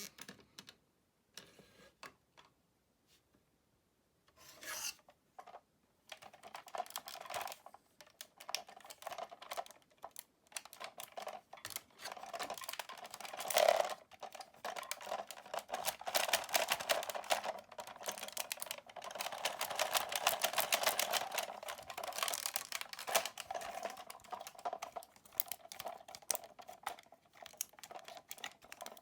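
Plastic toy figure being handled: rapid small clicks, clacks and rubbing of hard plastic parts, sparse at first and busier from about twelve seconds in.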